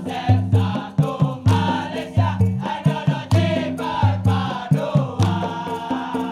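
Dikir barat chorus of young men singing a line together in answer to the lead singer, clapping in time over a steady drum beat.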